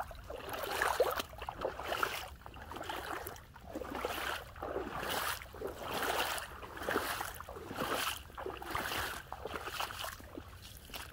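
Footsteps squelching and splashing through a wet, muddy trail, a step about every three quarters of a second.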